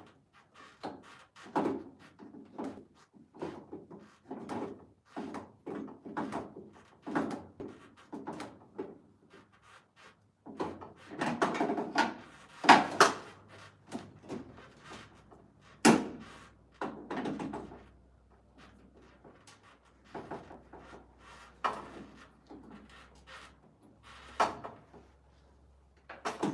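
Hand tools and metal parts being worked in an electrical panel: an irregular run of clicks, knocks and short scrapes, about one or two a second, with a few sharper strikes.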